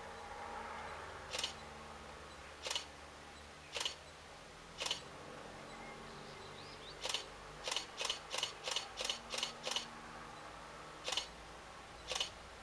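A series of short sharp sounds, first spaced about a second apart, then a quick run of about eight at four a second, then two more, over a faint steady low hum from a distant helicopter.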